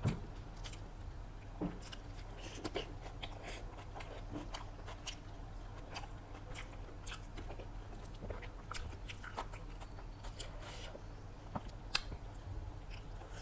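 Close-miked eating sounds: biting and chewing chicken biryani and salad, with irregular wet clicks and small crunches. A steady low hum runs underneath.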